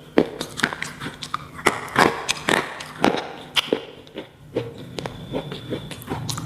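Slate pencil being bitten and chewed close to the microphone: crisp, irregular cracking crunches, about two or three a second.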